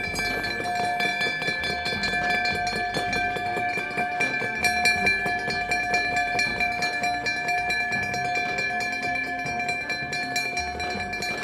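Stock exchange closing bell ringing continuously, a rapid clatter of strikes over steady ringing tones, set off by the button pressed to close the trading day.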